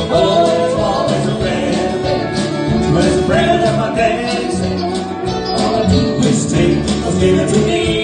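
Country band music, an instrumental stretch between sung lines of the song.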